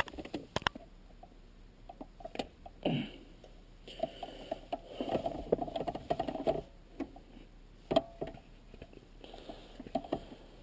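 Scattered light clicks and knocks of small shifter parts being handled by hand. In the middle there are a few seconds of rubbing and scraping.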